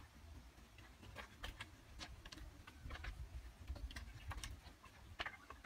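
Faint, irregular light clicks and taps of bamboo pieces being handled inside a woven bamboo boat hull, over a low rumble.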